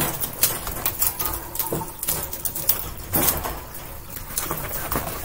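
White wire-grid guinea pig cage panels clinking and knocking as they are handled and fitted together: an irregular string of sharp metallic clicks.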